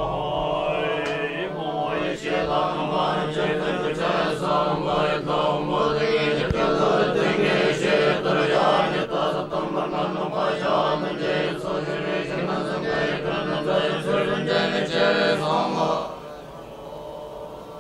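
Tibetan Buddhist monks chanting together in unison over a steady low drone of voices. The chant falls away about two seconds before the end, leaving it much quieter.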